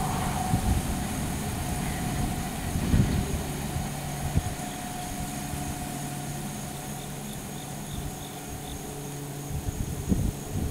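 Rear cars of a freight train rolling away on steel rails, a steady rumble with wheel knocks that slowly fades. A thin whine dies away over the first few seconds, and a few sharper knocks come near the end.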